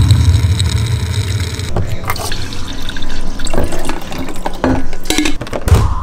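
Water pouring and filling a container, with a deep bass sound effect under the first two seconds and another near the end, and a few short clicks along the way.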